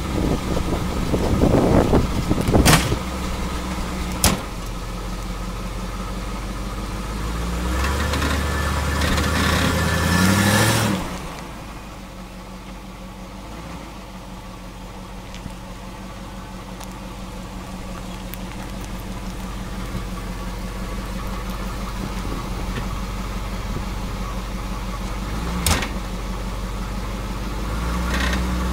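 Original Chevy small-block V8 of a 1976 Corvette: two sharp knocks early, then the engine idles and revs up as the car pulls away. About eleven seconds in the sound drops off suddenly and then slowly grows louder as the car comes back. The engine is burning oil and smoking once warm, which the mechanic takes for worn piston rings.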